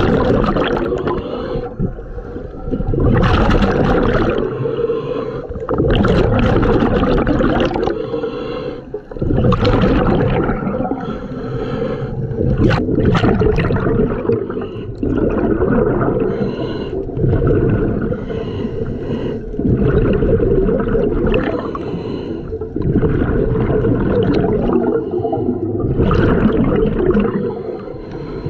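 Scuba regulator breathing heard underwater: loud bubbling rushes of exhaled air about every three seconds, alternating with quieter hissing inhalations.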